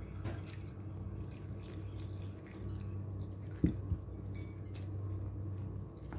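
Water poured from a mug into flour in a ceramic bowl, then a hand mixing the wet batter, with soft dripping and squishing. A single sharp knock about three and a half seconds in, and a steady low hum underneath.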